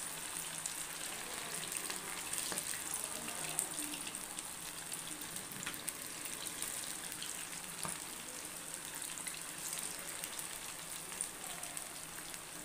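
Chicken pakoda pieces deep-frying in hot oil: a steady sizzle with small crackles.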